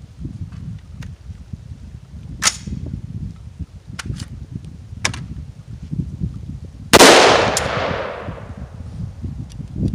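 A few sharp metallic clicks from handling the 5.56 AR-15 pistol, then a single loud rifle shot about seven seconds in that echoes away over a couple of seconds, with one more click just after it.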